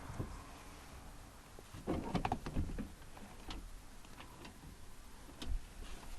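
Scattered clicks and clunks of car door parts and tools being handled, with a quick cluster of knocks about two seconds in and single clicks after.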